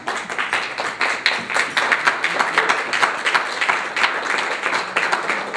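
A room of people applauding: many hands clapping quickly and unevenly, a little louder from about a second in.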